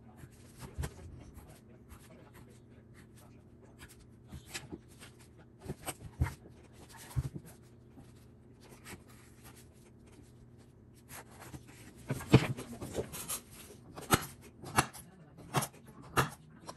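Pencil scratching and a ruler shifting on a pine board, with scattered light clicks. Over the last few seconds a hand-held awl is pressed into the wood point after point to punch pilot holes, a run of sharp clicks about two a second.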